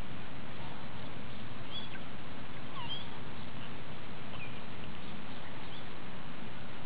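Steady outdoor background noise with a few faint, short, high chirps of distant birds scattered through it.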